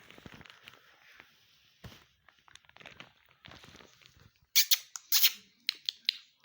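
Ringneck parrot giving loud, shrill squawks: two strong ones about four and a half seconds in, then a few shorter ones.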